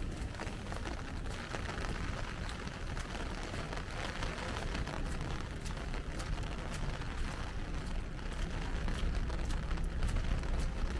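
Rainy city street ambience: a steady hiss of rain and wet street noise over a low rumble, with scattered sharp ticks of drops. It grows a little louder over the last few seconds.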